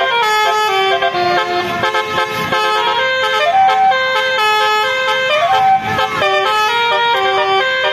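Basuri telolet musical car horn playing a tune: a quick run of bright, stepped notes with a couple of short sliding notes.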